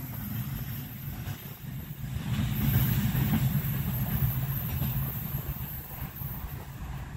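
Freight train rolling on the rails in the distance, a low rumble that swells about two and a half seconds in and then slowly fades.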